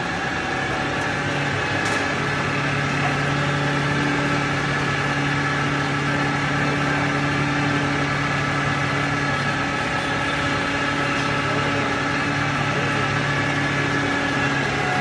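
Impact pulverizer for grinding sawdust into wood powder, driven by a large electric motor through V-belts, running steadily: an even mechanical hum with a higher whine over it.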